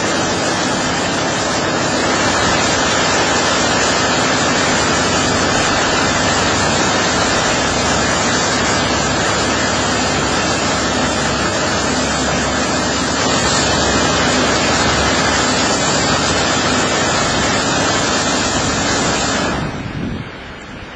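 One-arm touchless automatic car wash running its high-pressure water spray: a loud, steady hiss of water jets hitting the van. It stops fairly suddenly near the end.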